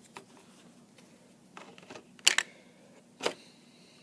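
A few short, sharp plastic clicks and taps from toy train pieces and packaging being handled, the loudest a quick double click a little past halfway.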